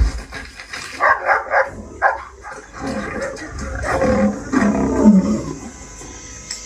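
A film soundtrack with an animal growling and roaring in several short calls, after a low thump at the start, fading to a low background near the end.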